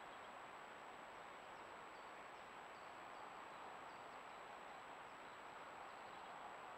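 Near silence: the steady hiss of a trail camera's microphone with a thin, high, steady electronic whine, and a few faint high chirps about two to four seconds in.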